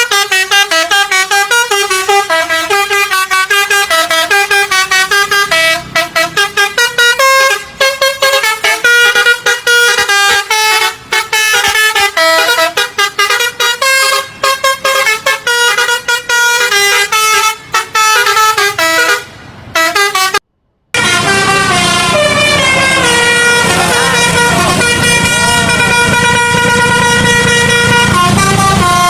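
Telolet basuri multi-tone bus horn playing a fast tune of changing notes with short breaks. After a sudden cut about two-thirds in, it holds steadier chords over a low rumble.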